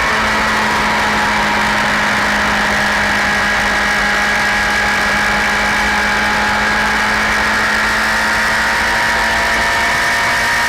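Honda CBR1000RR SC57 inline-four engine running at steady revs, its pitch holding nearly constant with only a slight drift.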